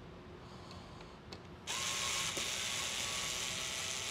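A small power screwdriver or drill running in a steady whir, starting about a second and a half in, as screws are backed out during disassembly; a couple of small clicks come before it.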